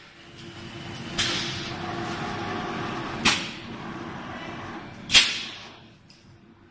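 Automatic bread and cake filling injector machine running with a steady hum, giving three sharp clacks about two seconds apart, each followed by a short rush of noise; the last clack is the loudest, and the sound dies away near the end.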